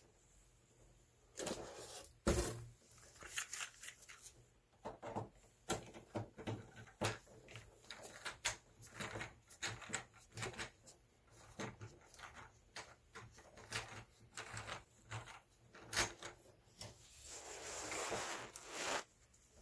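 Gloved hands working stiff insulated wires into a circuit breaker in a metal electrical panel: irregular small clicks, knocks and rubbing throughout, with a longer scraping rub near the end.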